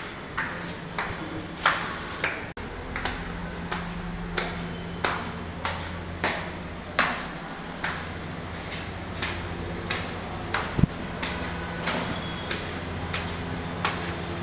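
Footsteps of someone walking through a stone-floored building and up a stairway, a regular step about one and a half times a second, with a steady low hum underneath.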